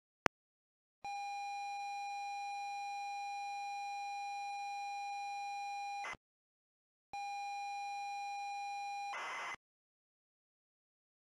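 ZX Spectrum 48K tape-loading signal, played by an emulator. After a single key click comes a steady high pilot tone of about five seconds, ending in a brief burst of header data. After a second's pause a shorter pilot tone of about two seconds ends in half a second of raspy data noise as the program block loads, and a click falls at the very end.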